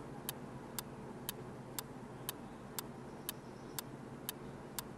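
Clock-tick sound effect of a quiz countdown timer, faint, even ticks about two a second, counting down the thinking time.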